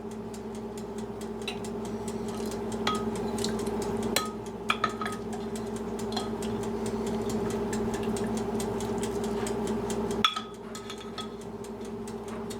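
A utensil clinking a few times against a cooking pot, over a steady low hum.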